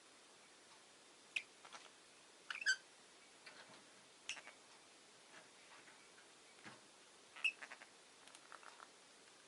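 Rosy-faced lovebird making faint, scattered short chirps and clicks, a second or more apart, the loudest about two and a half seconds in and again about seven and a half seconds in.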